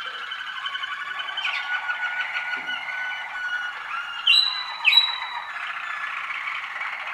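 First-year waterslager song canaries singing: a continuous song of rapid rolling trills. Two loud, short, falling whistled notes cut through about four and five seconds in.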